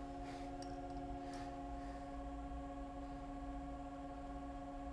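Low, steady hum of an idling CNC vertical mill, with a few faint clicks in the first second or so.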